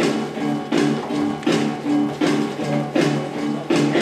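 Instrumental music with a steady beat: a riff of short, repeating low notes with a sharp hit about every three-quarters of a second.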